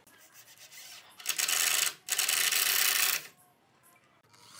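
Cordless drill working into the pine workbench frame in two bursts of about a second each, with a short break between them.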